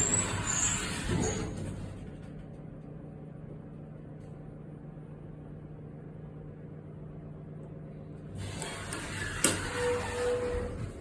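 Schindler 330A hydraulic elevator running with a steady low hum, with high squeaks and rattling in the first second or so and again from about 8 s in, including a sharp click and a short tone. The car is very squeaky and very loud, a sign that it doesn't run well.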